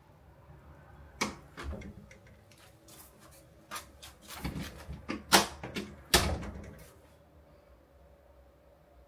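A run of sharp clicks, knocks and rattles of something being handled, going on for about six seconds. The two loudest knocks come a little after the middle.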